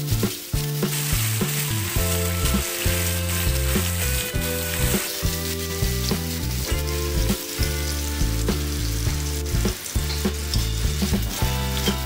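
Chicken pieces sizzling as they fry in shallow oil in a wok, with a metal spatula clicking and scraping against the wok as they are stirred. Background music with a steady run of low notes plays underneath.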